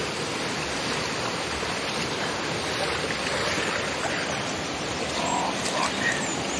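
Mountain river rushing steadily with a strong current.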